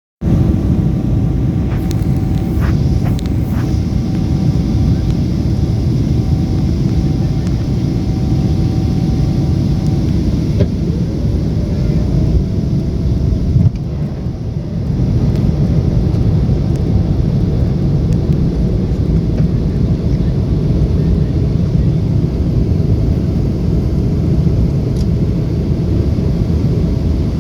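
Airliner cabin noise during a landing: a steady low rumble of jet engines and rushing air, with a faint steady tone and a brief dip in the noise about fourteen seconds in.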